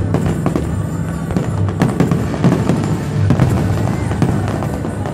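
Aerial fireworks bursting in quick succession: a dense run of bangs and crackles from many shells at once, over music with held low notes.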